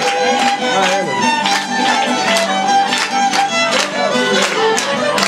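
Live Cypriot folk music: a violin playing the melody over a lute strummed in a steady beat of about two to three strokes a second.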